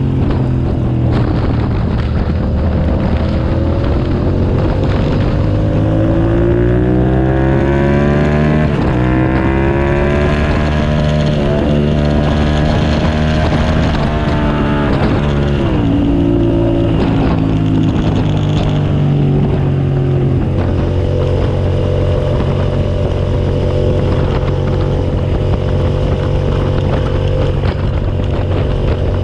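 2007 Suzuki SV650S's V-twin engine at speed on track: its pitch climbs through the gears with brief dips at the upshifts, falls about halfway through as the bike slows, then holds steady for the last third.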